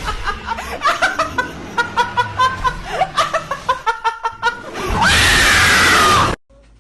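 Rapid, high-pitched laughter, then a loud scream of about a second and a half that starts about five seconds in and cuts off abruptly.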